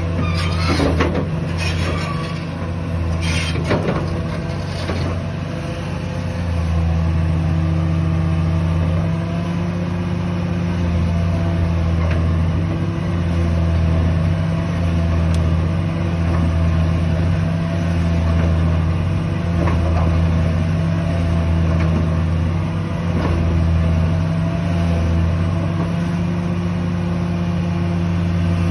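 Caterpillar 330D2 crawler excavator's diesel engine running steadily, swelling and easing about every two seconds. Several metallic knocks come in the first few seconds.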